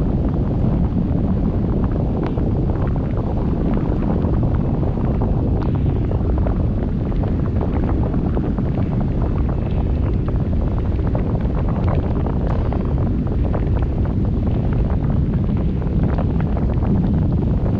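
Wind buffeting the microphone of a GoPro Hero7 Black carried aloft on a kite rig: a steady, loud low rumble with a few faint ticks scattered through it.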